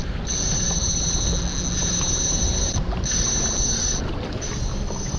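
Spinning reel's drag screaming in a high, steady whine as a big hooked fish pulls line off, breaking off for a moment about three and four seconds in. A steady low rumble from the jet ski and the water runs underneath.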